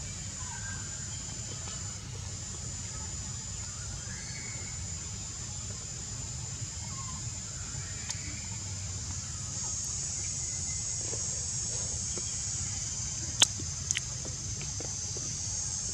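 Steady high-pitched insect chorus over a low rumble, the insect hum growing louder about two-thirds of the way through. Two sharp clicks near the end.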